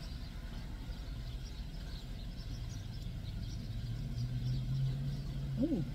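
A woman eating a chicken sandwich with her mouth closed, humming a low 'mmm' that swells from about four seconds in and ends in a quick rising-then-falling 'mm-mm' of enjoyment. Under it runs the low steady rumble of the car cabin.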